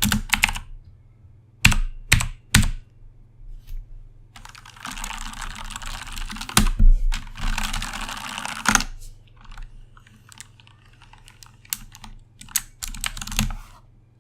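Typing on a Corsair K70 mechanical keyboard with clicky Cherry MX Blue switches: a few separate keystrokes, then a fast run of typing in the middle, then scattered strokes and short bursts near the end.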